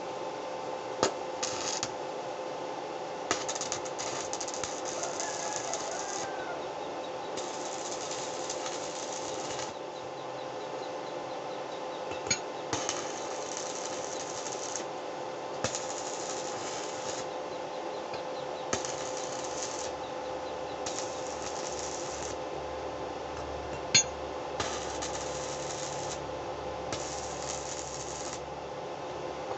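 Electric arc welding on car leaf-spring steel: the arc sizzles and crackles in bursts of one to three seconds, about nine times, with a few sharp clicks between, the loudest about three-quarters of the way through, over a steady electrical hum.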